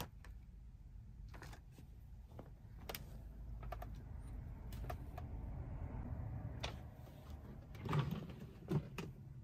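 Light clicking and rustling of plastic food packs and a paper receipt being handled. Near the end come two sharp knocks, about a second apart, as the truck cab's fridge lid is handled and opened.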